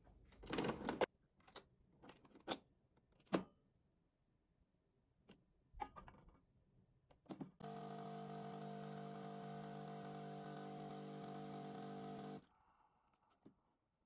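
Nespresso capsule machine being handled, giving several clicks and knocks, then its pump humming steadily for about five seconds while it brews espresso into a cup. The hum cuts off suddenly when the shot finishes.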